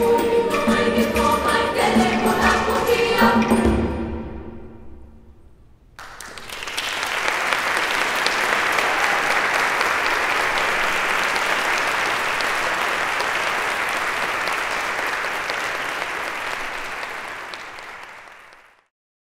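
Girls' choir holding a closing chord, which dies away in the church's reverberation about four seconds in. About six seconds in, audience applause starts and runs on, fading just before a cut near the end.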